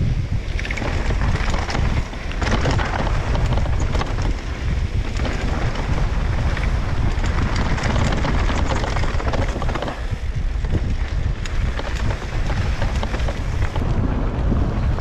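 Wind buffeting the microphone of a camera on a mountain-bike rider descending an enduro trail, mixed with tyres rolling over loose dirt and rock.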